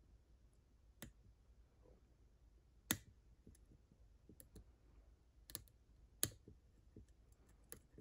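Faint sharp clicks of a steel hook pick and tension wrench working the pin stacks in the keyway of a Brinks aluminum padlock during single-pin picking. There are four clearer clicks spread over the seconds, the loudest about three seconds in, with softer ticks between.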